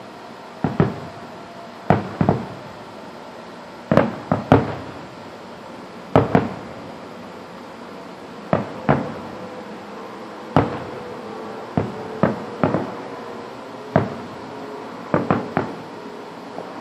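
Aerial fireworks shells bursting: about twenty sharp bangs, coming irregularly, often in pairs or quick clusters of three, each with a short echoing tail.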